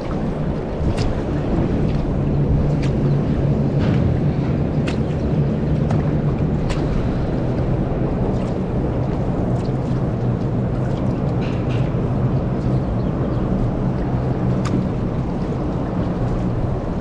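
Boat engine running steadily at low speed, a low even hum, with light splashes and clicks of water now and then.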